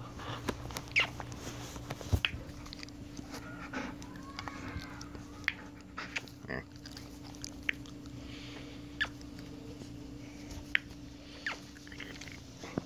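A dog resting close by making small mouth sounds: scattered short smacks and clicks, about ten in all, over a steady low hum.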